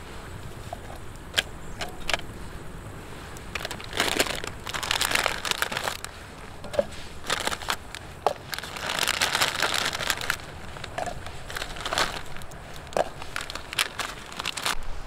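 Wood fire crackling in a portable camping fire pit. Scattered sharp pops come throughout, with two longer stretches of rustling hiss, about four seconds in and again about eight and a half seconds in.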